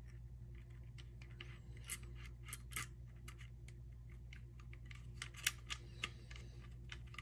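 Faint, scattered clicks and light taps of small parts being handled and fitted on an airsoft rifle's lower receiver, with one sharper click about five and a half seconds in, over a steady low hum.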